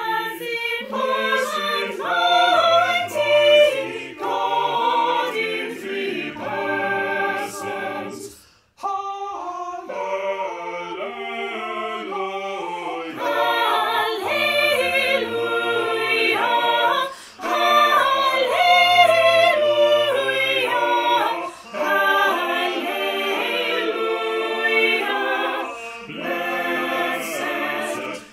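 Small mixed choir of men's and women's voices singing a cappella in sustained chords, with a short break about nine seconds in.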